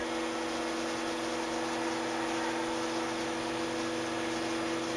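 Electric wine transfer pump running with a steady hum, pumping wine through a Y and solenoid valves into barrels being filled.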